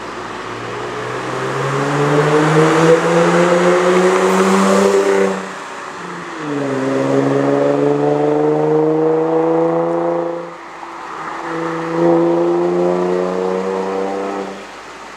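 Infiniti G35's 3.5-litre V6 through a Fast Intentions Intimidator exhaust with resonated test pipes, pulling hard. The note climbs steadily in pitch three times and drops back briefly between pulls, as with upshifts while accelerating through the gears. It eases off near the end.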